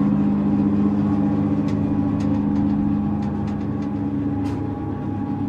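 Background music with long held low notes.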